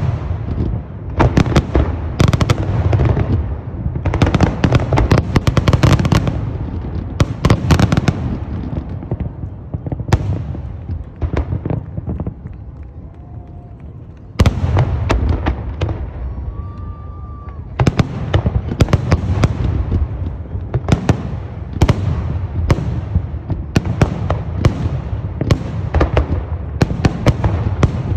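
A fireworks display: rapid sharp bangs and crackling, easing into a lull about halfway through, then breaking out again with a sudden loud burst and a fast run of explosions.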